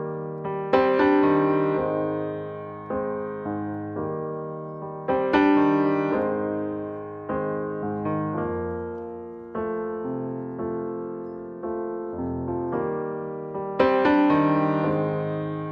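Solo piano background music: slow notes and chords, each struck and left to fade, with stronger chords about a second in, about five seconds in, and near the end.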